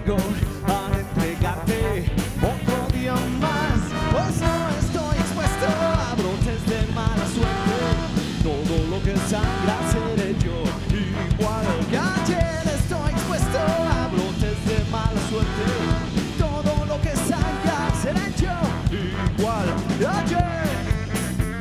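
Live band playing a passage with a steady drum beat, trombone and saxophone over electric guitar and drums.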